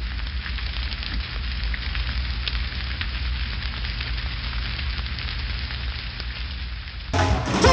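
Wood bonfire crackling and hissing, with sharp pops over a low rumble. About seven seconds in it cuts suddenly to loud live music with singing.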